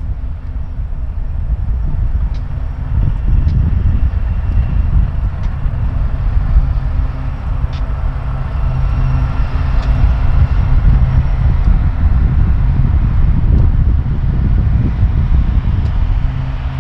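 BNSF coal train running by: a steady diesel locomotive drone and heavy rolling rumble, with a few faint ticks and wind buffeting the microphone.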